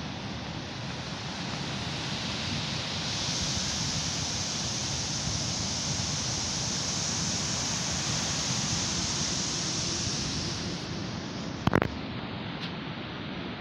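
Waves breaking and washing up a sandy beach, a steady hiss that swells in the middle and fades near the end. A brief sharp knock follows, the loudest moment.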